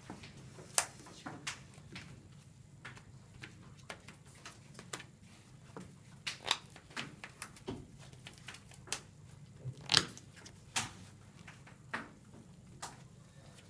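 Trading cards being handled on a playmat: irregular sharp clicks and taps as cards are picked up, flicked through and set down, the loudest about ten seconds in, over a steady low room hum.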